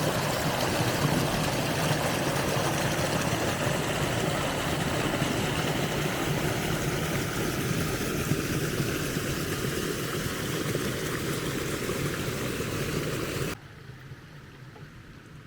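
A vehicle engine running, a steady noisy rush with a low rumble, cutting off suddenly about thirteen seconds in.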